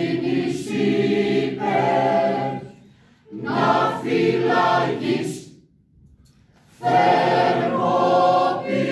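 Mixed choir of men and women singing a cappella, dipping briefly about three seconds in, pausing for about a second around the middle, then coming back in.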